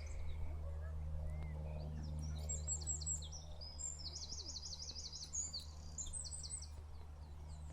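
A bird singing a quick run of high, repeated chirping notes for a few seconds, over a steady low hum.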